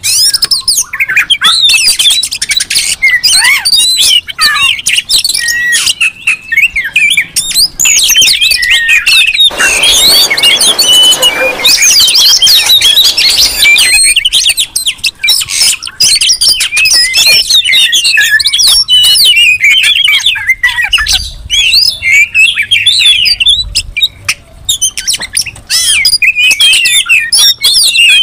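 A noisy chorus of many oriental magpie-robins singing and calling over one another, with rapid whistled notes and squawks: the agitated, territorial calling used as a lure to provoke other magpie-robins. About ten seconds in, a harsh, hissing rasp runs for about four seconds under the whistles.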